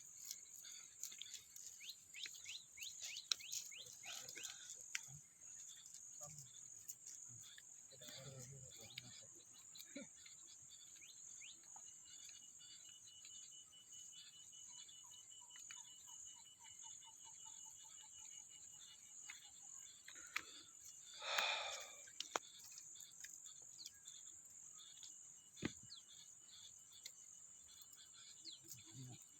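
Ganges river dolphin blowing once as it surfaces, a short breathy puff lasting about a second, roughly two-thirds of the way in. This is the surfacing breath known as its 'cough'. A steady high-pitched trill of insects runs underneath throughout.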